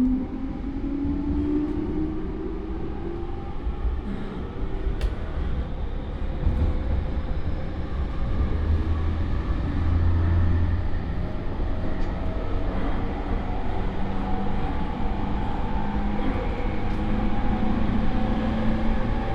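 JR E231 series electric multiple unit running, heard from inside the motor car: the whine of its Mitsubishi IGBT inverter and traction motors rises in pitch as the train gathers speed, over steady wheel and rail rumble. This unit is a known odd-sounding car, whose high motor tone wavers after the modulation changes during acceleration.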